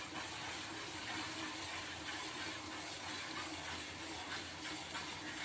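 Water buffalo being hand-milked: streams of milk squirting into a metal pail, over a steady hiss.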